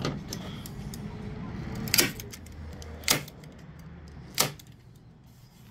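Hand staple gun firing staples through carpet covering into a wooden subwoofer box: three sharp snaps, a second or so apart.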